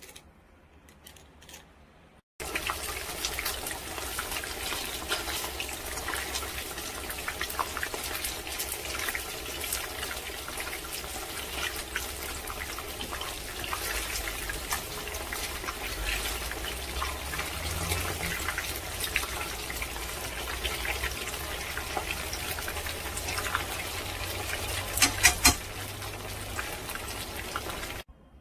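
Tofu cubes deep-frying in a pan of hot oil: a steady sizzle thick with small crackling pops, which starts abruptly a couple of seconds in and cuts off near the end. It follows a few faint clinks of a wooden spoon stirring sauce in a glass bowl, and there are a few sharp knocks shortly before the sizzle stops.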